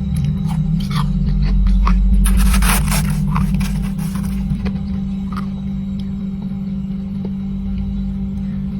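Freezer frost crunched and chewed close to the microphone: scattered crisp crackles, with a denser crunching burst from about two to four and a half seconds in, over a steady low hum.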